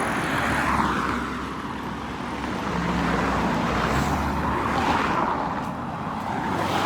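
Road traffic: motor vehicles passing one after another, their noise swelling and fading several times over a low steady rumble.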